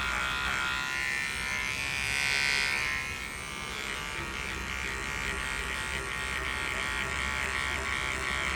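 Electric shaver buzzing steadily as it is run over the pilled fabric of a car's rear parcel shelf, shaving off the fuzz. It gets louder for a moment about two seconds in.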